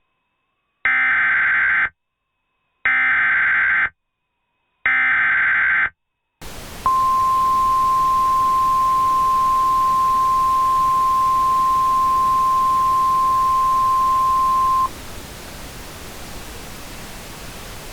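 Emergency Alert System header: three one-second bursts of screeching SAME data tones with silence between them. After the third burst, hiss comes in, and a single steady weather-radio warning alarm tone sounds for about eight seconds. It then stops, leaving only the hiss.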